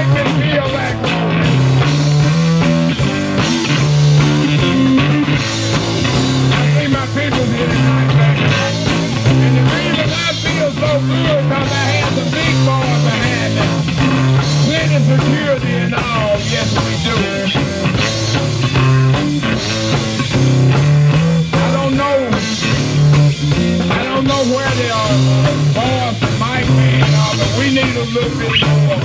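Live band playing: electric bass, electric guitar and drums. A repeating bass line is the loudest part and runs throughout.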